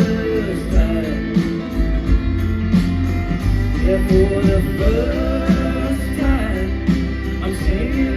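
Indie-folk band playing live: guitars, bass and a steady drum beat under a melody line.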